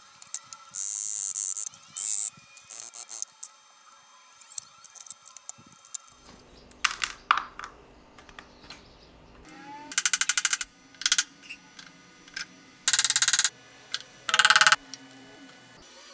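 Brass reed-organ reeds being drawn out of their slots in the wooden reed board and dropped into a plastic parts organizer: scattered clicks and clinks with a few short scraping rattles, the loudest in the second half.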